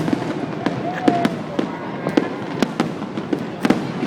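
Fireworks bursting: a rapid, irregular run of sharp cracks and pops over a constant crackling background, with a brief whistling glide about a second in.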